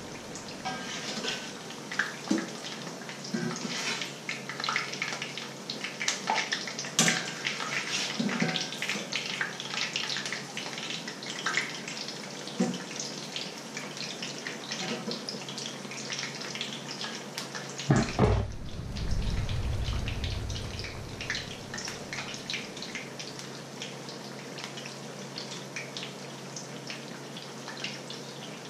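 Fritters frying in hot oil in a frying pan: a steady sizzle with dense crackling and spitting, with small clicks of metal utensils. About eighteen seconds in there is a loud knock, followed by a low rumble lasting about two seconds.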